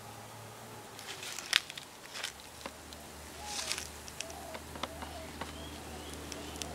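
Outdoor ambience with scattered light clicks and rustles, and one sharper click about a second and a half in.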